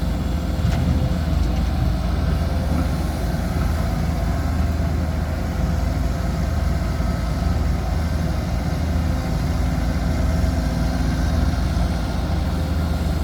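Heavy diesel engine running steadily with a deep, even low hum, from the excavator or dump truck working the pit.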